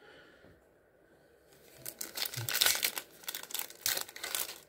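Foil wrapper of a Panini Absolute Football card pack crinkling and tearing as it is handled and ripped open, a rapid run of crackles starting about two seconds in.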